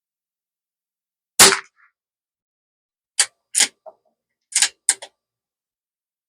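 .22 LR bolt-action rifle firing one shot, followed a couple of seconds later by a quick series of metallic clicks as the bolt is worked to eject the case and chamber the next round.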